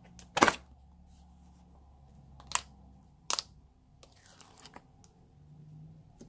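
Clear plastic food container clacking sharply three times as it is handled, the first the loudest, then grey foamy slime peeling out of it with a soft wet squelch.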